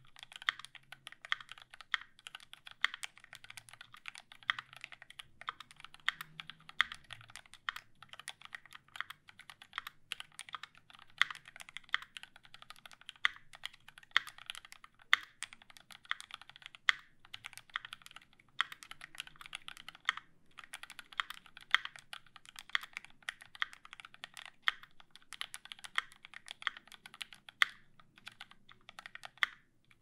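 Fast, continuous typing on a QXP custom mechanical keyboard with a brass plate, lubed C³ Tangerine linear switches with Cherry top housings, GMK Bento keycaps and no sound dampening. Dense key strikes, some louder than the rest, with brief pauses about twenty seconds in and again near the end.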